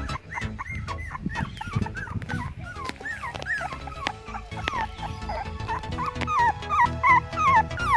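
Puppies whimpering and yipping in a string of short, high, rising-and-falling cries that grow louder toward the end, over background music with a steady beat.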